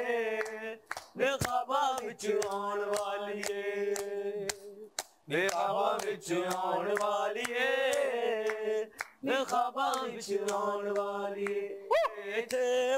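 A group of voices singing a Punjabi folk song without instruments, drawing out long held notes with short breaks between phrases, while hand claps keep time.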